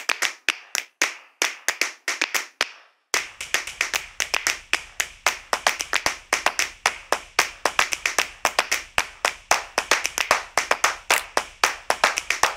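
A run of rhythmic hand claps with no melody under it: sparse claps at first, a short pause about three seconds in, then fast, dense clapping.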